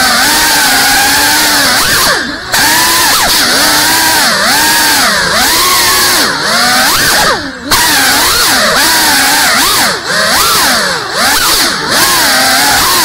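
Small FPV quadcopter's motors whining, the pitch swooping up and down constantly with the throttle. Two short throttle cuts, about two and seven and a half seconds in, briefly drop the sound.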